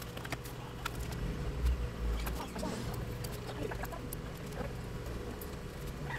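Light scraping and scattered small clicks of a razor blade worked along the edge of an LCD panel's glass and plastic frame, with a dull bump about two seconds in, over a steady low hum.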